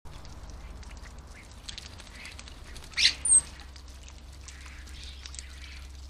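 Common starlings calling with scattered short clicks and chirps, and two loud calls about halfway through, the second a brief high whistle. A steady low hum lies underneath.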